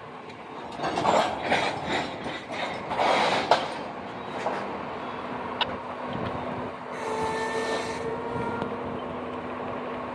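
Freight cars rolling slowly through a grade crossing: wheels clatter over the rail joints and crossing in uneven bursts, with a few sharp clanks, over a steady hum. A brief squeal with hiss comes about seven seconds in.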